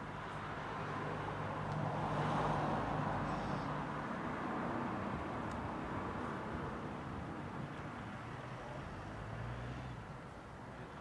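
E57 motor siren coasting down after its alarm signal, its slowing rotor giving a low, faint, steady tone. A passing car swells up and fades over it, loudest about two to three seconds in.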